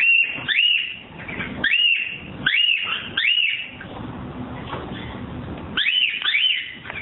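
Pet parrots calling while mating: short squawks that rise and fall in pitch, coming in small clusters, with a lull in the middle and a quick run of three near the end.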